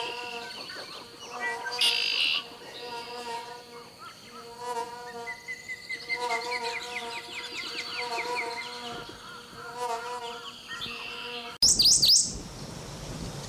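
A hummingbird feeding: the buzzing hum of its wings, swelling and fading in pulses, with sharp chip calls and a quick run of ticks. Near the end it changes abruptly to a goldfinch's loud, high chirps.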